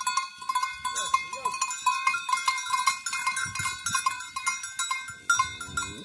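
Many goat bells clanking and ringing in an uneven clatter as a herd of goats walks past.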